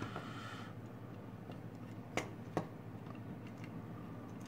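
Light handling of an electric salt and pepper mill's plastic motor-and-light unit, with two small sharp clicks about half a second apart near the middle.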